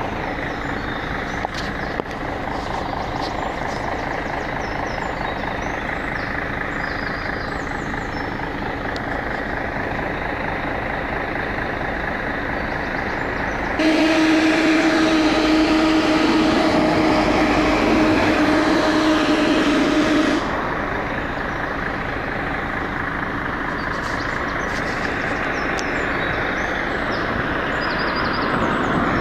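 Scania L113CRL bus running, with a steady vehicle noise; about 14 seconds in a really loud steady hiss with a droning hum starts suddenly, holds for about six and a half seconds and cuts off. The uploader takes it for a loud air release from the bus's air system.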